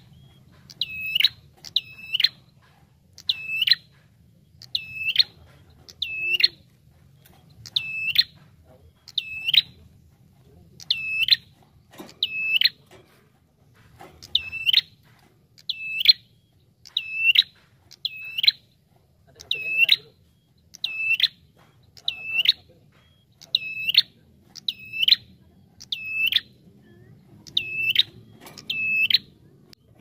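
Ashy tailorbird (prenjak tamu) calling one loud, sharp, high note over and over, about once a second and sometimes in quick pairs, with a short break about twelve seconds in.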